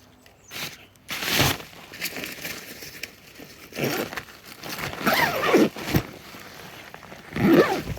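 Crinkling and rustling of sheeting being handled in short bursts, with a couple of brief sliding squeaks.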